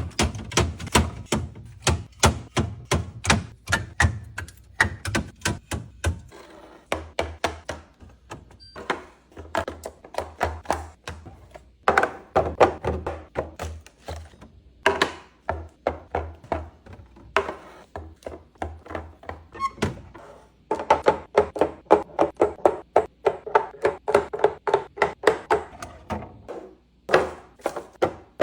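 Fridge restocking: containers, jars and groceries being handled and set down on shelves, a rapid string of knocks and clicks, often several a second, with brief pauses.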